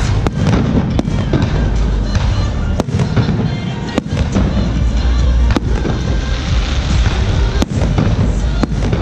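Aerial firework shells launching and bursting in a continuous barrage, many sharp bangs in quick succession over a deep rumble.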